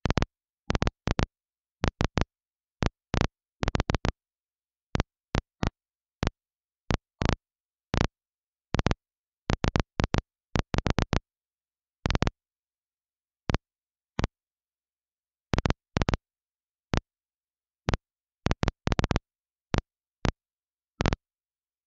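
Short clicks and crackles of static on an air-band radio scanner feed, coming irregularly and often in quick clusters, with dead silence between them, typical of squelch breaks with no speech.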